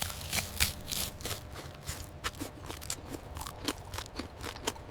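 Crunching of crispy fried chicken being bitten and chewed: many short, sharp crunches in quick, irregular succession.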